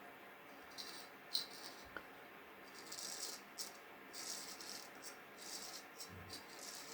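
Faint, scratchy strokes of a straight razor cutting through stubble: several short rasping strokes in irregular succession.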